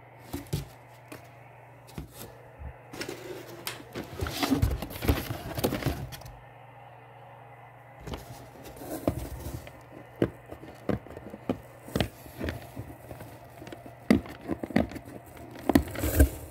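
Hands unpacking a shipping box: a few seconds of rustling packing material, then scattered clicks, taps and knocks as items are handled and set down, over a low steady hum.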